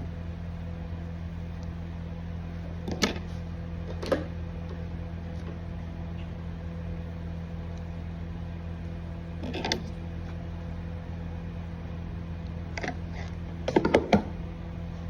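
Handheld hair dryer running with a steady hum, with a few short clicks and knocks, a quick cluster of them near the end.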